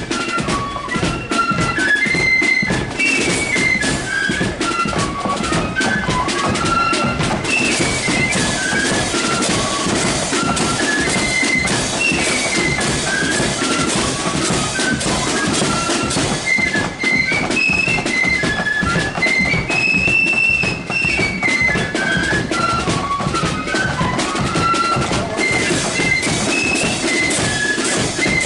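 Marching flute band playing: a tune on massed flutes in unison, stepping up and down, over a fast, steady beat of snare and bass drums.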